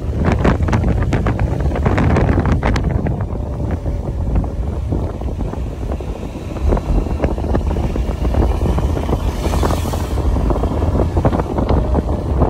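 Wind buffeting the microphone of someone riding a motorbike, over the engine's steady running and road noise. A brief hiss comes about ten seconds in.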